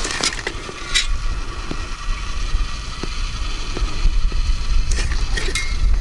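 Wind buffeting the microphone as a steady low rumble, with a few sharp clicks: one near the start, one about a second in, and two near the end.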